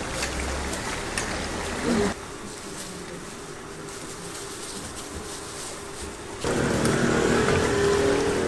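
Hotteok frying in a shallow layer of oil on a flat griddle: a steady sizzle, quieter for a few seconds in the middle and louder again near the end.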